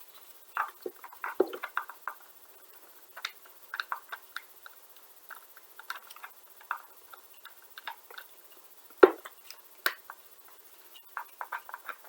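A tool unscrewing a long screw deep inside a gel blaster's buffer tube, where it threads into the spring retainer: irregular small clicks, ticks and scrapes of metal and plastic, with a sharper knock about nine seconds in.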